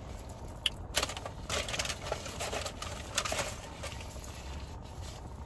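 Close-miked chewing of food: a run of irregular sharp clicks and crackles, busiest in the middle.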